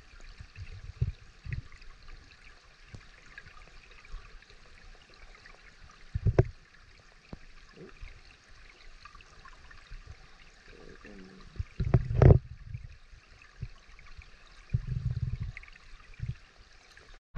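Small woodland stream running, a steady babble of moving water, broken by a few dull low thumps about six, twelve and fifteen seconds in.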